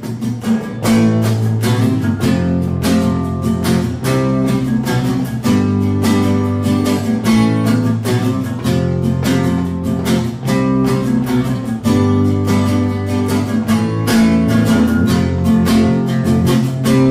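Acoustic guitar strummed, playing chords in a steady rhythm.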